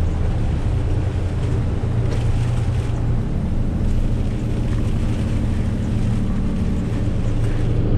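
Tow truck running on a rain-soaked highway, heard from inside the cab: a steady low engine hum under an even hiss of tyres on wet road.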